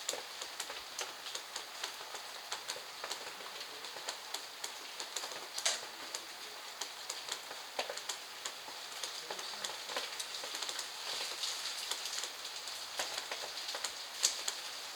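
Steady rain falling, a hiss with many separate drops tapping and dripping irregularly, two louder drips about six seconds in and near the end.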